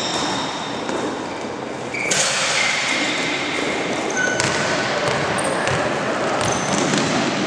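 Basketball game in a gym: a ball bouncing on the court, short high squeaks of sneakers, and a steady hubbub echoing in the large hall.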